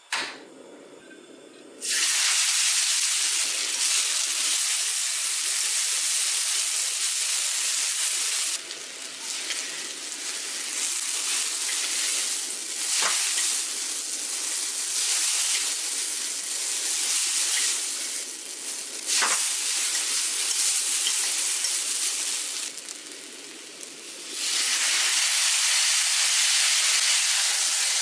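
Chinese egg noodles sizzling in hot peanut oil in a wok on high heat. The sizzling starts suddenly about two seconds in and rises and falls as the noodles are tossed. It comes back loud near the end, when the noodles are being coated in soy sauce.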